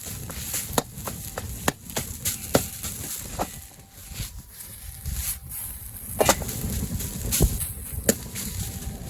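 A spatula striking and scraping a Chinese wok while fried rice is stir-fried, sharp knocks about once a second over a low frying noise.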